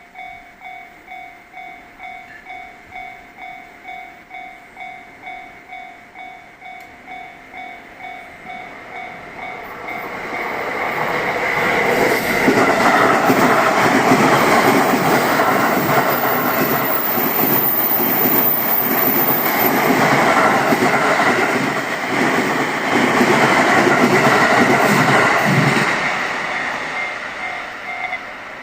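A Japanese level crossing warning bell rings in an even, repeating pattern of about three strikes every two seconds. From about ten seconds in, a 15-car E231 and E233-3000 series electric train grows loud as it passes through the crossing, its wheels clattering over the rails. It fades near the end while the bell keeps ringing.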